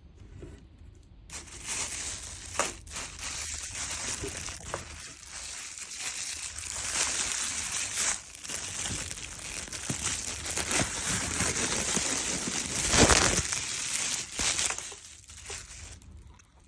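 Close crackling and crunching of crisp pani puri shells being broken and chewed, with many small clicks and a louder burst about 13 seconds in.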